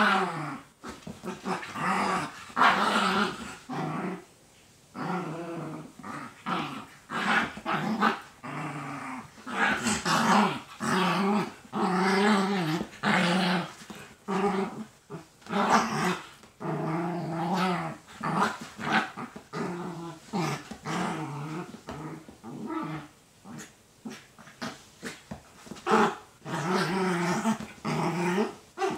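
Two small dogs growling in repeated bouts while they wrestle each other in rough play.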